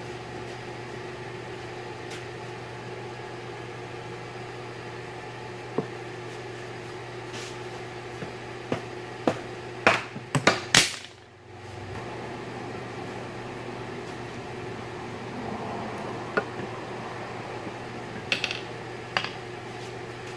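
Sharp metal clanks and taps from a pry bar and tools working apart the aluminium case halves of a Subaru EJ255 engine block, with a loud cluster of knocks about halfway through and a few lighter taps near the end, over a steady shop hum.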